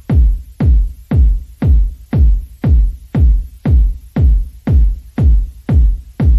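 Electronic dance music with a steady kick drum about two beats a second and sharp hi-hat clicks.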